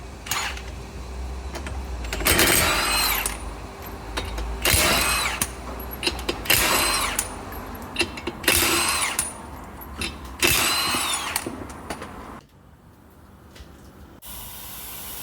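Power tool on a tyre-repair job run in five short bursts about two seconds apart, each whine falling in pitch as it spins down. A steady hiss begins near the end.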